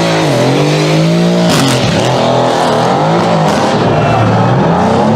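High-performance car engine and exhaust revving, its pitch climbing and dropping several times as the revs rise and fall. A brief sharp crack comes about a second and a half in.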